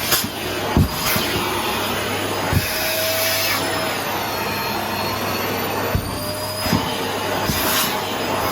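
Paper-bag vacuum cleaner running with a steady motor whine, with a few short knocks as it works.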